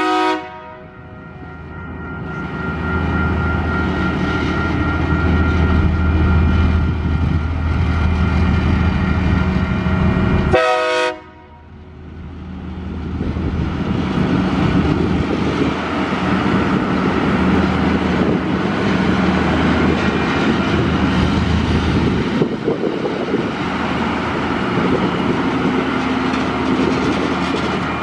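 TasRail TR class diesel locomotives passing close by. The multi-note horn ends about at the start and sounds again in a short blast about 11 seconds in. Between the horn blasts the engine rumble grows loud, then continues steadily along with the noise of wheels on the rails.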